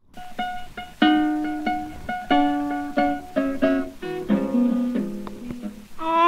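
Background music: a plucked string instrument, ukulele-like, picking out a melody of separate fading notes, with a held, wavering note entering near the end.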